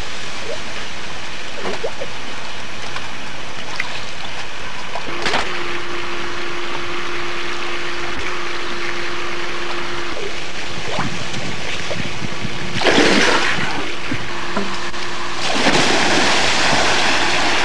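Swimming-pool water splashing: a short burst of splashing about 13 seconds in, then heavier, continuing splashing near the end as someone thrashes in the pool, over a steady hiss.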